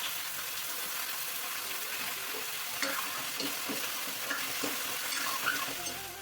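Chopped jackfruit sizzling and frying in hot oil in a pan, with a few short knocks as it is stirred.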